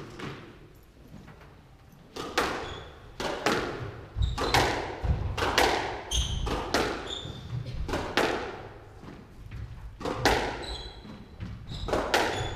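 Squash rally: the ball is struck by rackets and cracks off the walls about once or twice a second, each hit echoing around the court, starting about two seconds in. Short squeaks of court shoes on the wooden floor come between the shots.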